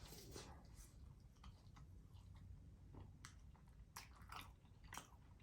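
Faint chewing of a mouthful of food close to the microphone, with scattered soft mouth clicks and smacks, a few slightly louder ones about three, four and five seconds in.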